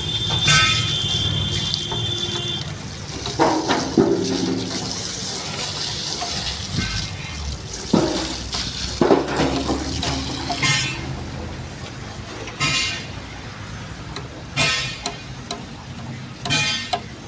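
Water from a hose gushing and splashing over a truck's steel diesel tank as it is washed out, fading after about ten seconds. A few short high tones sound at intervals in the second half.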